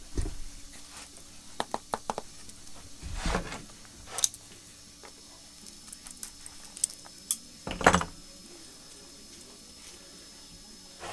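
Light clicks, taps and rustles of hands working a small bottle of oil, twisting its cap, with two louder short knocks about three and eight seconds in.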